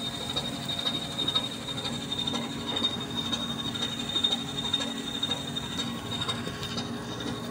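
Steady low engine hum from the cargo ship coming alongside the pier, with a thin steady high-pitched whine over it and a few faint ticks.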